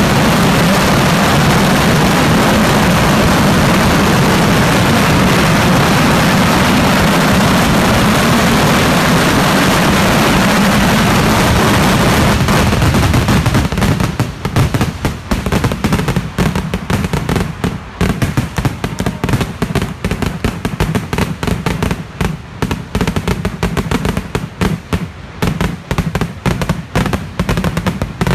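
Close-range fireworks: firecrackers going off so densely that for about the first half they merge into one continuous loud blast. About halfway through this breaks up into rapid, separate bangs and crackles that go on to the end.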